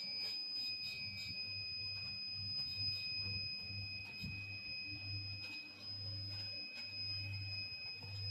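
A steady high-pitched electronic tone, with a second tone about an octave below it, held unbroken over a low hum.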